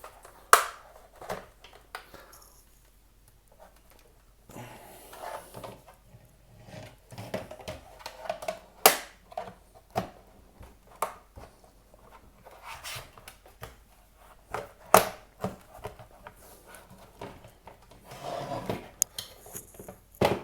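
A screwdriver prying at a plastic access-point case: sharp clicks and snaps at irregular intervals, with scraping and rubbing of the tool against the plastic in between.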